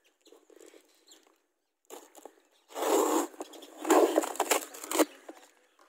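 Fingers scratching and picking at a cardboard parcel, then packing tape ripped off the box in two loud tearing pulls near the middle.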